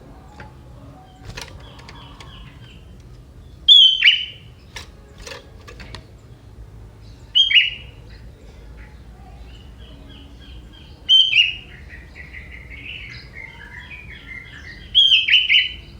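Young wild sooty-headed bulbul singing: four loud, short phrases about every three and a half seconds, each dropping in pitch, with softer twittering between them.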